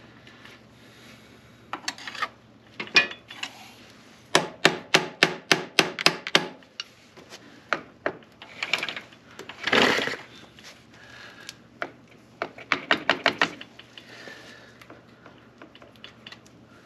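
Metal hand tools working a motorcycle's rear chain adjuster while the chain tension is being set: two runs of sharp metallic clicks, about five a second, with a brief louder scrape between them.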